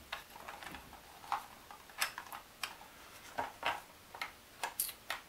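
Light wooden clicks and taps, about a dozen at irregular intervals, from a thin laser-cut plywood ambulance model being handled as its gurney is slid in and out of the back.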